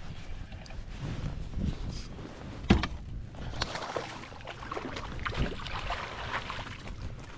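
Water splashing beside a fishing kayak as a hooked bass thrashes at the surface and is landed, with one sharp knock about three seconds in.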